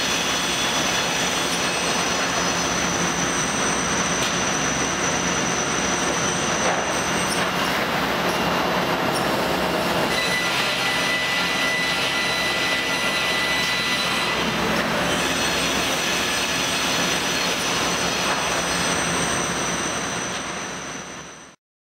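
Steady industrial machine noise of an automated plywood cutting line running, with thin high whines that come and go over it. It fades out near the end.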